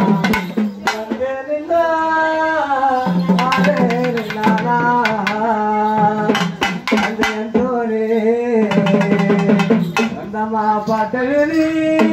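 Tamil folk music: a man sings long, wavering held notes through a microphone and loudspeaker, over quick, steady strokes on a barrel drum.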